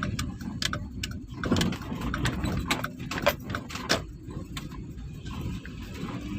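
Low rumble of a motor vehicle with scattered sharp clicks and knocks.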